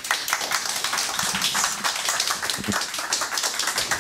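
Audience applauding: many hands clapping steadily in a room, dying away near the end.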